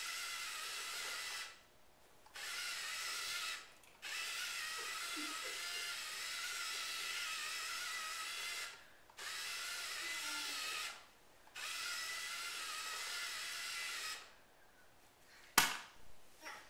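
Small electric motor and gears of a toy remote-control school bus whirring in five runs, stopping and starting as the button on the steering-wheel controller is pushed and released. A single sharp knock near the end.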